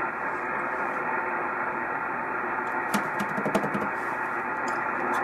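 Amateur radio transceiver on the 6-meter band giving out a steady hiss of band noise between transmissions. About three seconds in there is a quick run of sharp clicks.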